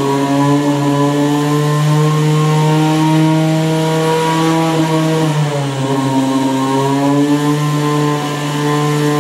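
Small rotary (Wankel) engine running on biodiesel at a steady pitch. Its speed sags slightly about five and a half seconds in, then holds.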